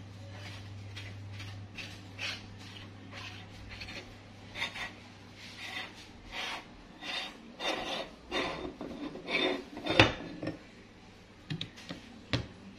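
Metal parts of a meat grinder scraping and clanking in a run of short strokes, roughly two a second and growing louder, as the front retaining ring is worked off. A sharp metal knock about ten seconds in, then two lighter clicks near the end.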